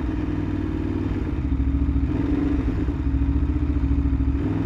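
Aprilia Tuono V4 1100RR's V4 engine running, its exhaust pulsing evenly, swelling slightly about a second and a half in.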